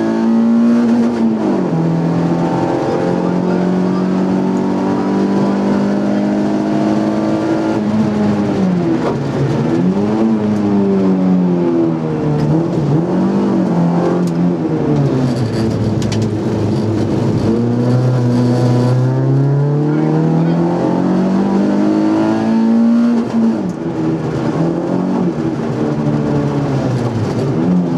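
Nissan Micra rally car's engine heard from inside the cabin, running hard at high revs. The revs dip and rise several times through the middle, climb steadily for several seconds, then fall sharply a few seconds before the end.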